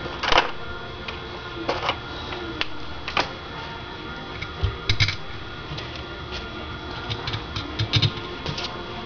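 Irregular small clicks and taps of metal parts and tools being handled while a Weber DGV carburetor is reassembled by hand, with louder clicks about a third of a second in, near 5 s and near 8 s. A faint steady hum sits under them.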